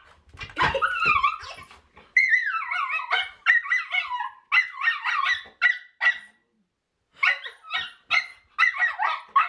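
Miniature schnauzer puppy crying at a new ball: a long string of high-pitched whines and yelps, with a brief pause about two-thirds through.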